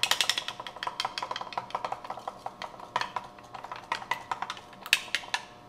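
Egg being whisked in a small measuring cup with the wooden handle of a pastry brush: quick, irregular clicking of the handle against the sides of the cup, with a few louder taps about five seconds in.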